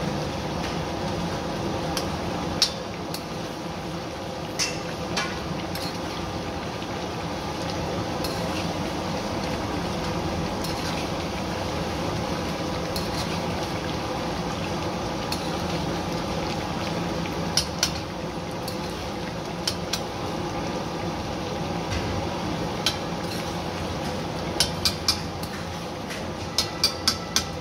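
Mutton karahi gravy bubbling in a metal karahi as it cooks down, stirred with a metal spatula that clinks and scrapes against the pan. There are scattered sharp taps, with quick clusters of them near the end.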